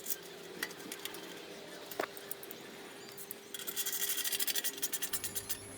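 Hand tools working on motorcycle bolts: a few light clicks and knocks, then about two seconds of rapid clicking starting some three and a half seconds in.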